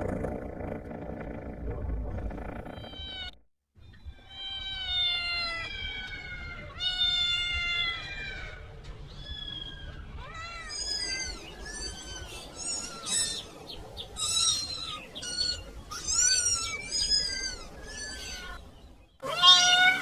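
Kitten meowing over and over, high thin calls that rise and fall about once a second, getting higher and louder toward the end. A low rumble comes before the first meows, and the sound drops out briefly about three and a half seconds in.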